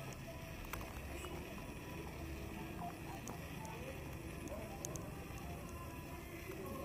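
Street ambience: a steady low hum of traffic with faint voices of passers-by and a few sharp clicks.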